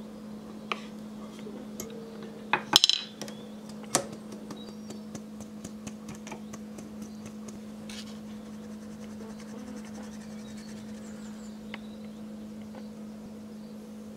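Metal mesh sieve clinking and knocking against a glass mixing bowl while flour is sifted, with a loud cluster of knocks about three seconds in and another sharp knock a second later, then only scattered light ticks. A steady low hum runs underneath.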